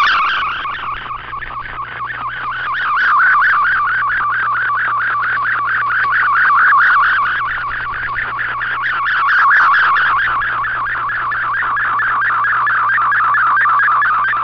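MFSK64 digital picture transmission heard through an Icom IC-R8600 shortwave receiver: a continuous, rapidly warbling data tone centred around 1 to 2 kHz, swelling and fading in loudness every few seconds, over a steady low hum.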